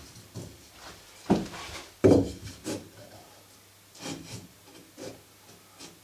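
An irregular series of knocks and scrapes, about seven in all, the loudest about two seconds in, over a faint steady hum.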